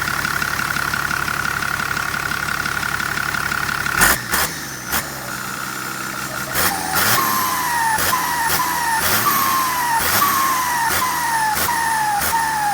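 Turbocharged engine idling with a steady high turbo whine, then blipped about four seconds in and, from the middle on, blipped quickly again and again, roughly twice a second. Each blip is followed by a falling whistle from the turbo, which is fitted with a 'pente' (comb) insert to make it sing.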